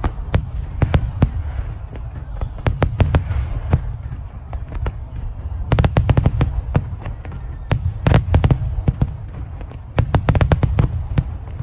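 Fireworks display: volleys of sharp bangs and crackles in about five clusters a couple of seconds apart, over a constant low rumble.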